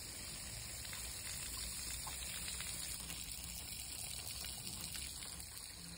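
Tap water running steadily through a boiler's plate heat exchanger and draining away, rinsing out the sludge loosened by the spirits of salts.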